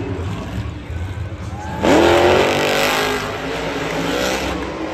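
Monster truck's supercharged V8 engine revving hard: a sudden loud rev about two seconds in, its pitch climbing, then staying loud as the truck runs the jumps.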